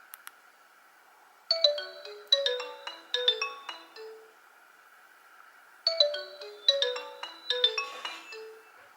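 Nokia 113 mobile phone playing one of its built-in ringtones: a short melody of quick notes, played twice with a pause of about a second and a half between. A couple of faint clicks come just before the first phrase.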